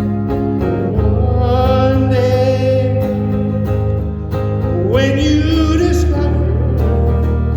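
Live country music: guitars and bass playing under a lead line that holds two long notes with vibrato, the second one sliding up into pitch.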